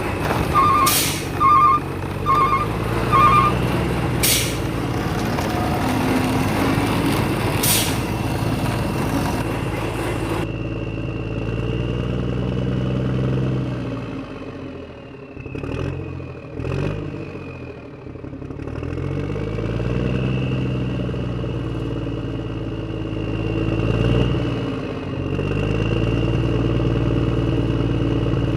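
Toy vehicle motors and engine noises repeatedly rising and falling in pitch as the toys speed up and slow down. In the first few seconds there are a few sharp clicks and four short pairs of beeps.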